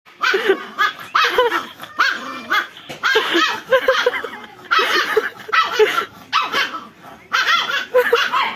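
A dog barking over and over, in quick runs of short barks.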